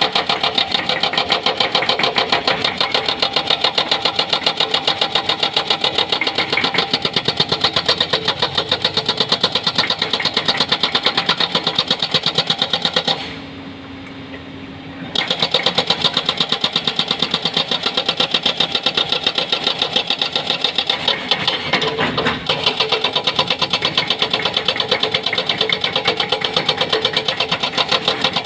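Hydraulic rock breaker on a Doosan excavator hammering rock in rapid, even blows. The hammering stops for about two seconds roughly halfway through, leaving the excavator's engine running, then starts again.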